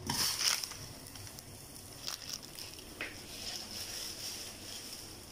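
Plastic instant-noodle packet rustling briefly at the start, then a low steady hiss with a couple of light clicks.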